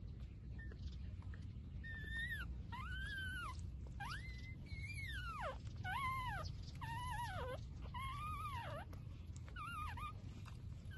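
Young puppy whining: a run of about eight high, thin cries, each rising and then falling in pitch, starting about two seconds in.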